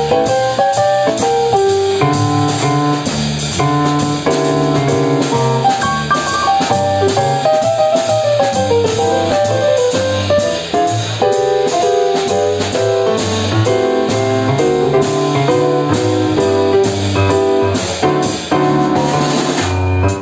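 Jazz piano trio playing live: a Yamaha stage piano plays melodic runs and chords over a plucked upright double bass and a drum kit keeping a steady beat.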